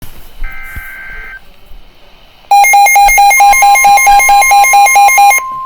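Weather radio alert signalling for a new warning: a short burst of data tones, then a loud pulsing alarm beep at about four to five beeps a second. About a second into the beeping, the steady single-pitch NOAA Weather Radio warning alarm tone starts and holds under it, outlasting the beeps.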